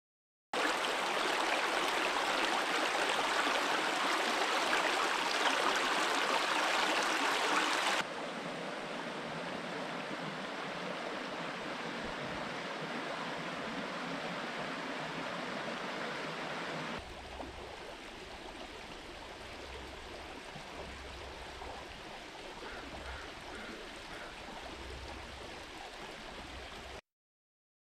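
Small forest creek running over stones and gravel, a steady rush of water. It comes in three shots with hard cuts between them, each quieter than the last.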